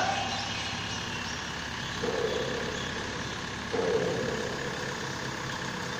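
Mobile crane's engine running steadily under load while it holds a raised steel frame, getting louder twice for about half a second to a second, about two and four seconds in.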